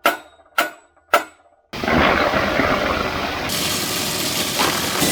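Three sharp knocks about half a second apart, then, from under two seconds in, a Masport 5 hp wood chipper's engine running steadily with a dense, rushing noise.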